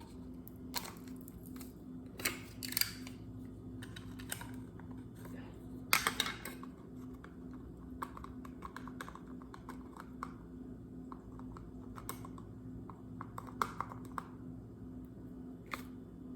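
A measuring spoon scooping and levelling a teaspoon of ground nutmeg: scattered light clicks, taps and scrapes of the spoon against the spice container, with a few louder knocks, over a steady low hum.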